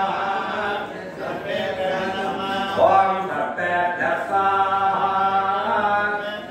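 Priests chanting mantras in a drawn-out sung recitation, with long held notes.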